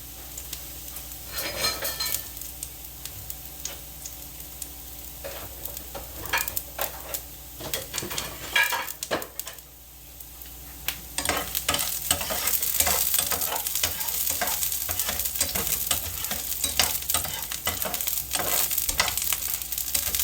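Chopped onions frying in a skillet, a steady crackling sizzle, with a utensil stirring and scraping them; the sizzle grows louder about eleven seconds in.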